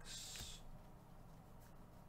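Near silence: faint low room hum, after a brief hiss at the very start.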